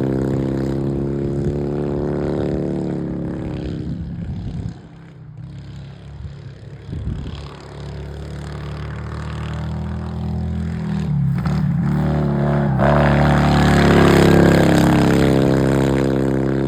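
Racing lawnmower engine running, fading down about four seconds in and staying low for a few seconds, then building back up to loud again near the end, with a few sharp clicks just before it peaks.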